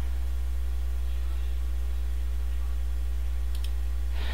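Steady low electrical mains hum with a row of even overtones, from the recording setup. A couple of faint mouse clicks come near the end.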